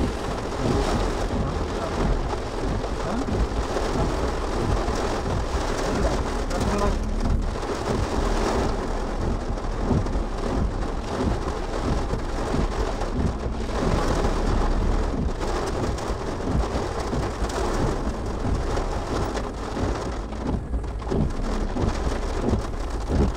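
Heavy rain falling on a car's roof and windshield, heard from inside the car: a steady, dense hiss with a low rumble underneath.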